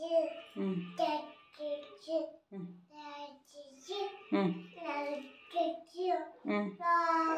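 A toddler's high voice babbling in a sing-song chant, short syllables following one another quickly, with a few lower-pitched vocal sounds mixed in.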